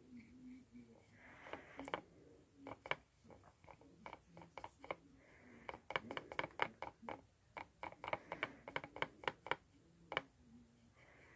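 A paintbrush tapping and clicking against the wells of a paint palette while mixing brown paint: quick, irregular taps, thickest in the middle of the stretch.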